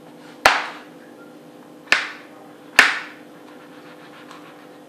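Kitchen knife cutting through a bell pepper and striking a wooden chopping board: three sharp knocks about a second apart.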